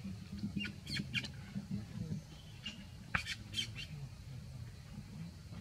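A few short, high-pitched animal squeaks, in two small clusters about one second and three seconds in, over a low steady rumble.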